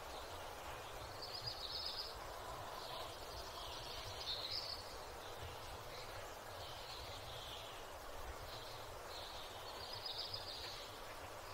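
Songbirds chirping and trilling faintly in a countryside ambience, short high calls every second or two over a steady low rumble.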